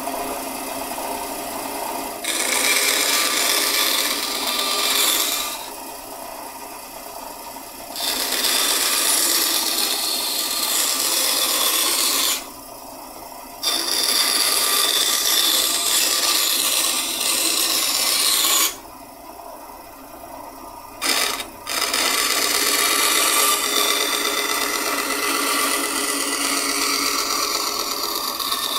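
A Vevor 10-inch benchtop bandsaw cutting freehand curves in pine board. The blade's loud hiss through the wood comes in four passes. Between them the saw runs on quietly while the board is backed out and turned.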